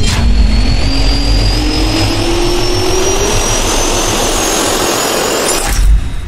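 Jet turbine spool-up sound effect: loud rushing noise with a whine that rises steadily in pitch, ending with a low thump just before six seconds in and then dying away.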